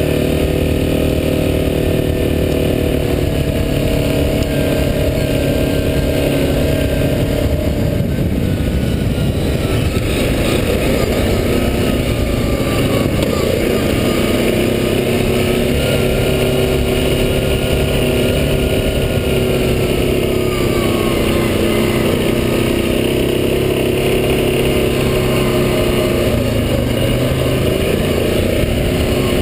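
Yamaha Grizzly 700 ATV's single-cylinder engine running steadily as the machine is ridden along a dirt trail. The engine note wavers and breaks up about eight to ten seconds in, then settles to a new steady pitch.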